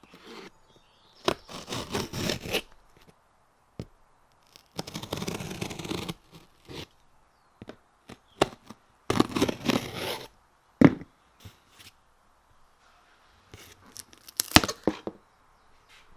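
Cardboard wheel box being cut open with a knife and torn: three rasping bursts of tearing and scraping, and a few sharp cracks.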